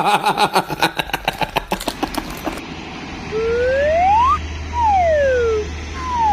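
A rapidly warbling tone breaks into fast clicks that slow down and stop. About three seconds in, separate siren-like whoops follow, each sliding smoothly up or down over about a second, over a steady low hum like an engine.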